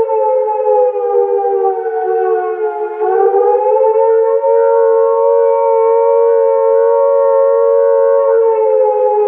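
Two-tone air raid siren howling, its two close pitches sounding together as a chord. The pitch sags over the first few seconds, swings back up about three seconds in, holds steady, then dips slightly near the end.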